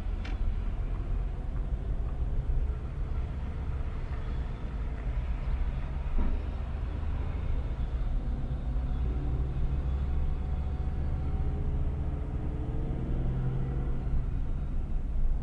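Vehicle engine and road rumble heard from inside a car's cab, the engine note slowly rising in pitch in the second half as it picks up speed.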